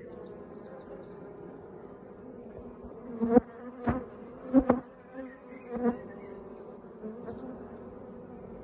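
Honeybees buzzing steadily in a crowd on an open hive's brood frames, a low, even hum. A handful of sharp clicks come between about three and six seconds in.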